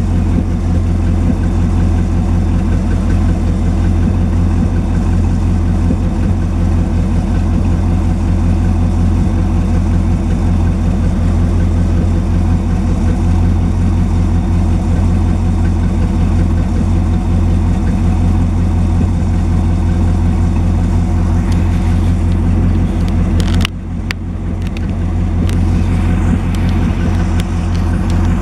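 1959 Edsel Ranger's 292 Y-block V8 idling steadily while it warms up from a cold start; the owner says the engine has an exhaust leak. A few knocks come near the end, with a brief dip in level.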